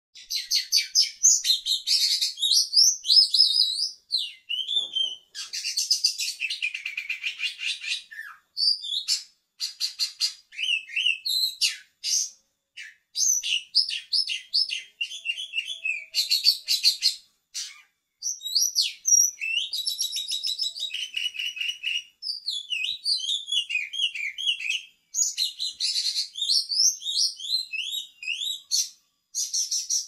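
Oriental magpie-robin (kacer) singing vigorously and almost without stopping: a varied run of rapid trills, chattering strings of notes and slurred whistles, broken by only brief pauses.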